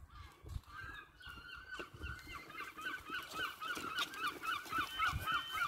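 Level crossing yodel alarm warbling in a fast, even rhythm, starting about a second in and getting louder: the warning that a train is coming and the barriers are about to come down.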